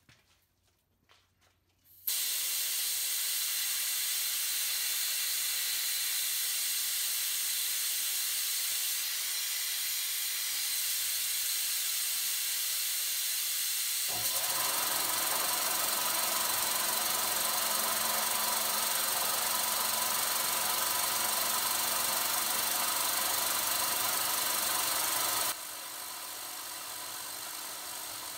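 Compressed air from a nozzle aimed at a carbide end mill starts with a sudden steady hiss about two seconds in. About halfway through, the milling machine's spindle starts running underneath it with a steady whir. Near the end the air hiss drops to a lower level.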